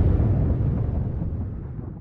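Low rumbling tail of an explosion sound effect, fading out steadily as the high end dies away first.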